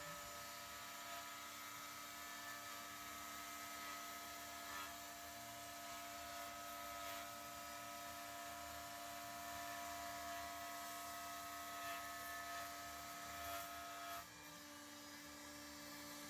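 Mechmate CNC router running, a steady whine of held tones over an even hiss. A couple of the tones drop out about fourteen seconds in and it gets slightly quieter.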